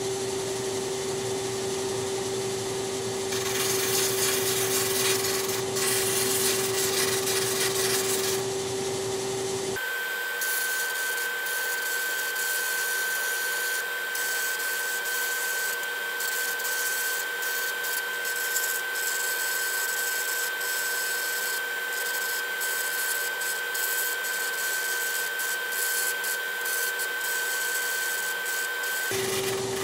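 Drum sander running steadily with a hum, while a wooden intarsia piece is pressed to its sanding sleeve, giving a rubbing hiss. The pitch of the hum changes abruptly about ten seconds in and changes back just before the end.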